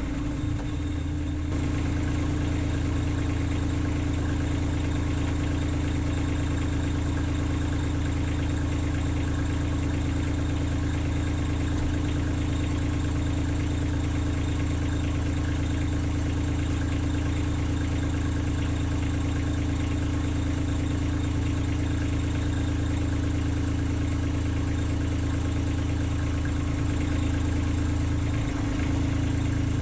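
Kubota LX2610 compact tractor's three-cylinder diesel engine idling steadily.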